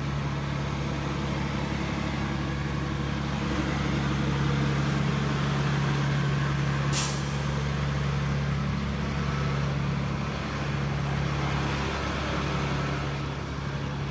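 Engine idling steadily with a low, even hum, and one short hiss about halfway through.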